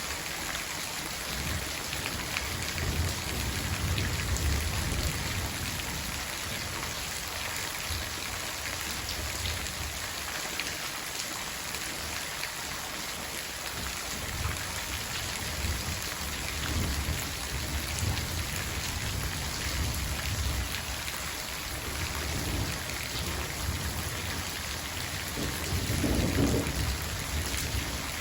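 Steady rain falling, with low rolls of thunder rumbling up several times; the loudest roll comes near the end.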